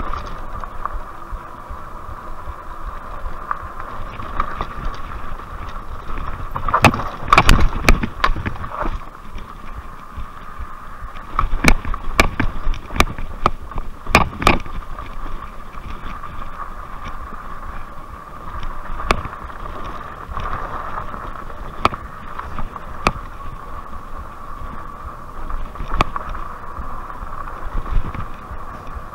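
Rad Power RadRover fat-tire electric bike ridden over a rough dirt trail: tyre rumble and wind on the microphone under a steady high whine, with clusters of rattling knocks as the bike jolts over bumps and ruts about seven seconds in and again around twelve to fourteen seconds.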